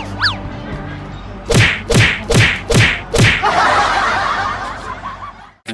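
Edited-in comedy sound effects: a falling electronic chirp at the start, then five booming hits about half a second apart, each dropping sharply in pitch, followed by a hissing swell that fades away; music resumes at the very end.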